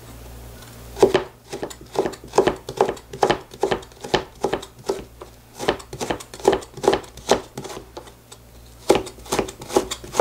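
Chef's knife julienning burdock root on a plastic cutting board: steady knife strokes about two or three a second, starting about a second in, with a short pause near the end before the cutting resumes.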